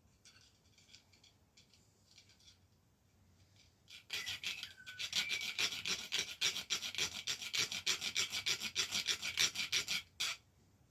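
Hand file rasping on a headset spacer, taking off the small key tab that the fork has no notch for. Short, quick back-and-forth strokes, about five a second, start about four seconds in and keep going for some six seconds, followed by one final stroke.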